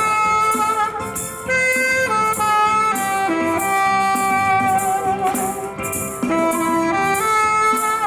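Tenor saxophone playing a slow melody of long held notes over a band accompaniment, with egg shakers keeping a steady rhythmic shake.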